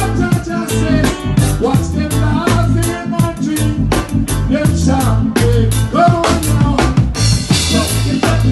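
Reggae band playing a song on a steady, evenly pulsing groove with a heavy bass line, with a bright burst of high hiss near the end.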